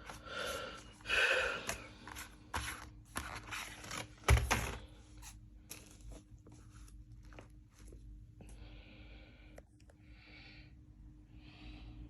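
Packaging being handled and opened: rustling and tearing with sharp clicks, and one loud thump about four seconds in. Softer, separate rustles follow in the second half.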